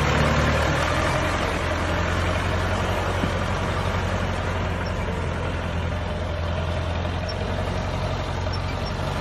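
Diesel farm tractor engine running steadily under load as it pulls a disc plough through the soil, a low hum that eases slightly as the tractor moves away.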